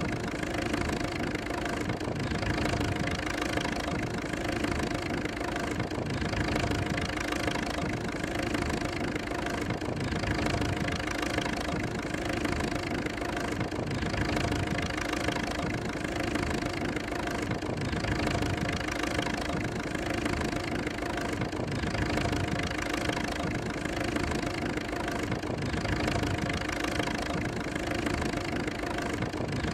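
J. I. Case 40-72 tractor's four-cylinder valve-in-head engine, 7-inch bore by 8-inch stroke, running steadily under load while pulling a multi-bottom plow.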